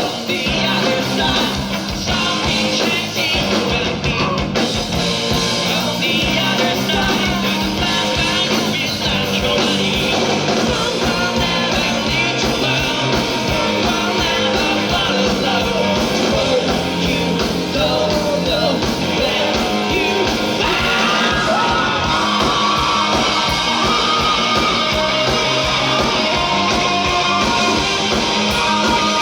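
A rock band playing live, with a singer over guitars and drums.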